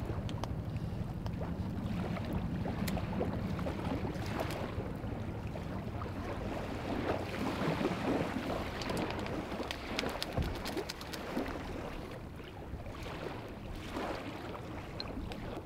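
Steady outdoor wind rush with soft scattered clicks and rustles of seasoning packets and a squeeze tube being handled and emptied into a clay pot.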